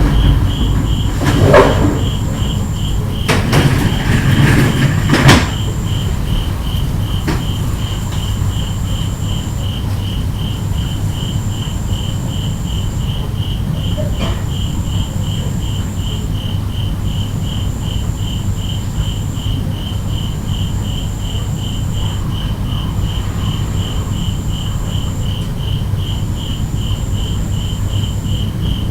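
Sliding storm shutters (amado) being run along their track, with rumbling rolls and knocks during the first five seconds or so. Behind and after them, night insects chirp steadily: a rapid pulsed chirp, and a higher trill that comes in runs of about two seconds with short gaps.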